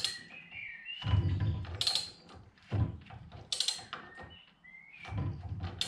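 BMW N52 exhaust camshaft being turned by a wrench on its hex end, with metallic ratchet-like clicks and clunks coming in uneven bouts and a few short squeaks as the lobes push the roller rocker arms and valve springs. The valvetrain turns without binding.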